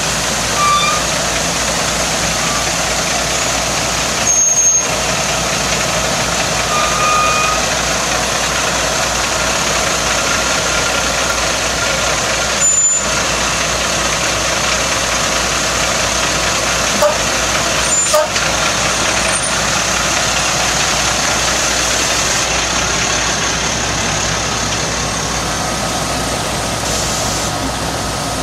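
Noxious-weed vehicle washdown unit running, a loud steady machine-and-spray noise with almost no change in level.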